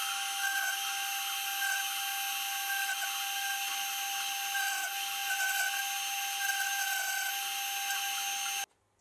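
400 W toolpost-grinder spindle running at speed with a steady high whine while its grinding wheel is dressed by a diamond dressing tool, with a scratchy hiss that comes and goes. The sound cuts off suddenly near the end.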